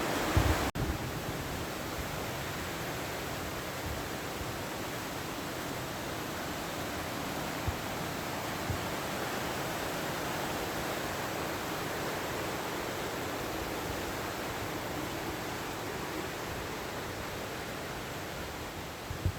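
Steady rushing of a fast, high-running mountain river.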